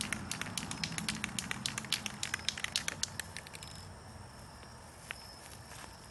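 Aerosol spray paint can being shaken, its mixing ball rattling in quick, irregular clicks that die away about three and a half seconds in.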